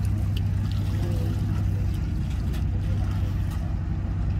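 Bass boat's outboard motor idling with a steady low hum.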